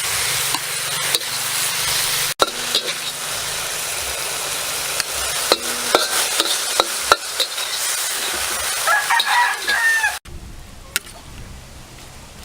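Beef and vegetables sizzling as they fry in a pan, with scattered clinks of stirring. A rooster crows about nine seconds in. The sizzle cuts off abruptly at about ten seconds, leaving a much quieter background.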